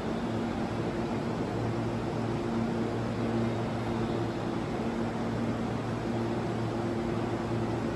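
Steady machinery hum and air noise of a railway station platform, with a low droning tone that fades in and out.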